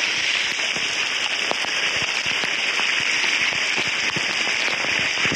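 Heavy thunderstorm rain pelting a flooded street: a dense, steady hiss full of sharp crackling drop impacts.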